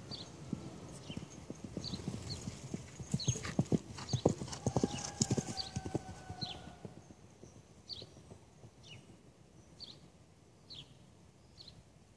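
Hoofbeats of a horse ridden over the ground, growing louder to their peak about four to five seconds in, then fading away by about seven seconds.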